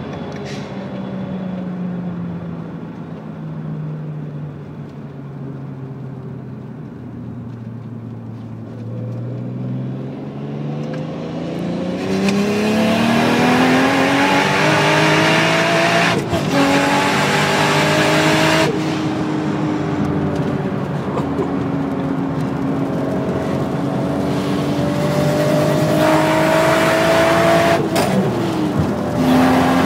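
Single-turbo Toyota Supra with a Garrett GT35 turbo under a gear-by-gear pull: the engine first eases off with its pitch sinking, then goes to full throttle and gets much louder. The pitch climbs through the revs, broken three times by a sudden drop at each upshift.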